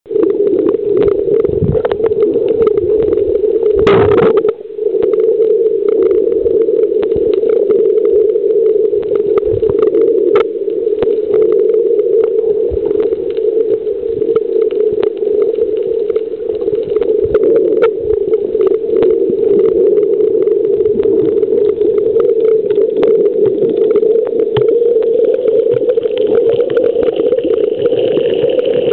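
Steady, muffled underwater noise picked up by a camera in a housing: a constant hum with scattered faint clicks, and a brief louder rush about four seconds in.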